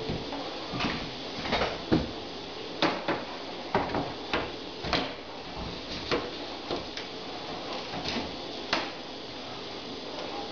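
Glass cooktop being set into a benchtop cutout and shifted into place: a run of irregular light knocks and clunks, about a dozen over eight seconds.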